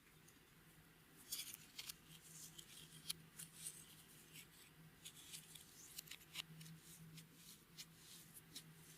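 Clear slime being worked by hand, giving faint, irregular sticky clicks and small pops from about a second in, over a faint steady hum.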